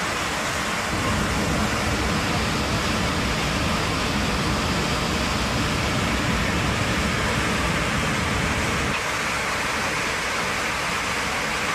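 Loud, steady rushing roar inside an airliner cabin: air noise and engine noise from a plane flying with a hole torn in the side of its fuselage. The low rumble eases slightly near the end.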